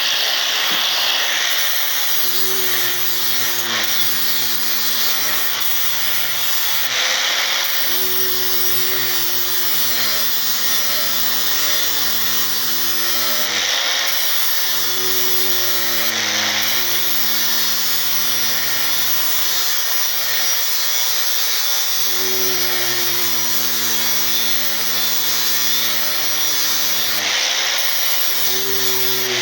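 Angle grinder with a 60-grit flap disc grinding the edge of a steel lawn mower blade, running continuously to sharpen it. The motor's hum drops in pitch and recovers several times as the disc is pressed onto the blade.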